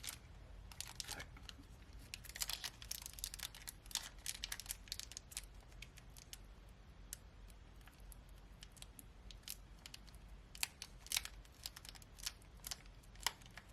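A foil trading-card booster pack being crinkled and torn open by hand in many short, sharp crackles, busiest in the first few seconds and again near the end. The pack is stiff and does not tear easily.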